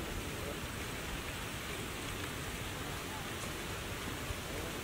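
Steady outdoor background hiss, even from low to high pitch, with no distinct event standing out.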